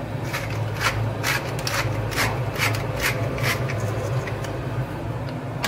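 Hand-twisted pepper mill grinding peppercorns: a run of dry, gritty rasping strokes, a little over two a second, over a steady low hum.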